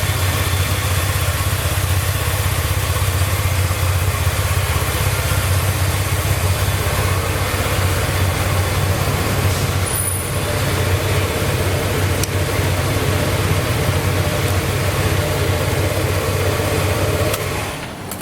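Yamaha TMAX maxi-scooter's parallel-twin engine idling steadily through its stock exhaust.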